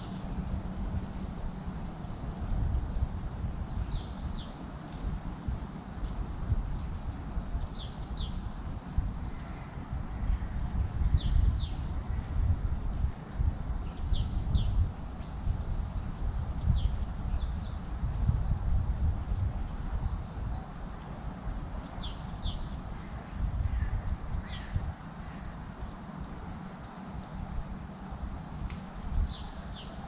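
Small woodland birds chirping with many short, high calls, some falling in pitch, all the way through. Under them runs a louder, uneven low rumble that swells and fades.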